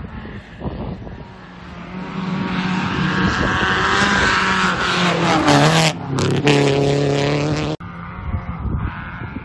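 Race car's engine revving hard as the car approaches on a gravel road and passes close by, its pitch falling as it goes past. A brief break comes about six seconds in, and the sound cuts off suddenly soon after.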